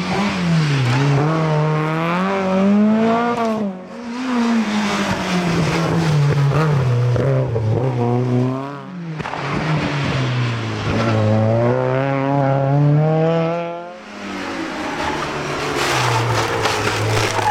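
Racing car engines at full throttle, the engine note repeatedly climbing through the revs and dropping back at gear changes and lifts. The sound comes in about four separate runs, dipping briefly every four to five seconds.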